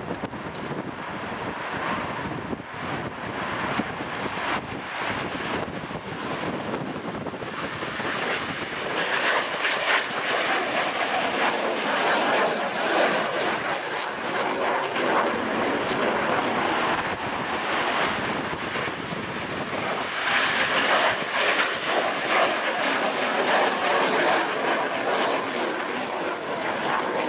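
Jet noise from an AIDC F-CK-1 Ching-kuo (IDF) fighter's twin afterburning turbofans as it takes off and climbs away. The noise grows louder about eight seconds in and stays loud.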